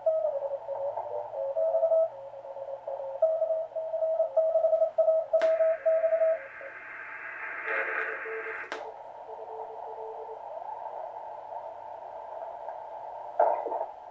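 Heathkit SB-301 receiver playing Morse code (CW) signals through its narrow CW filter: a keyed, steady tone at about 700 Hz. About five seconds in a click opens a wider band of hiss for about three seconds as the mode switch is turned, then another click narrows it again, leaving fainter, lower keyed tones and a brief rising pitch as the dial is tuned.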